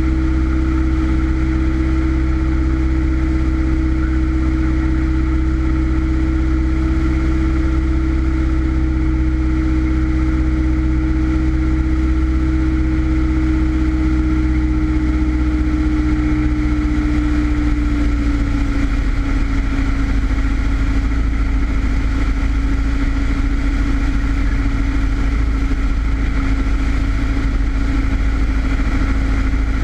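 Single-engine Cessna's piston engine and propeller drone, heard inside the cabin on approach to land. The note is loud and steady and dips slightly in pitch about two-thirds of the way through.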